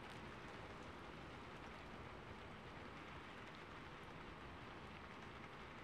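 Faint, steady rain, an even patter with no pitch.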